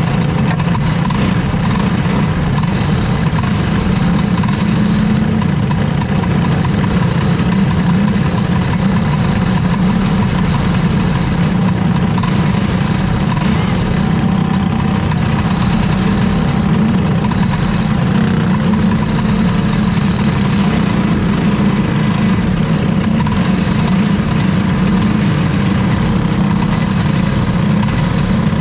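Racing kart engine idling steadily, heard up close from a camera mounted on the kart.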